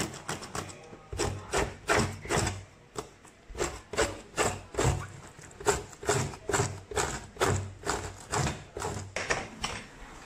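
A knife scraping in short, repeated rasping strokes, about two to three a second, along a python's scaly skin against a stainless steel sink as the skin is cleaned.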